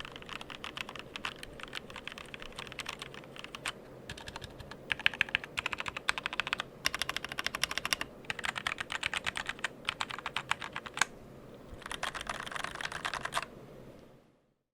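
Rapid typing on a mechanical keyboard: runs of fast key clicks broken by short pauses, fading out near the end.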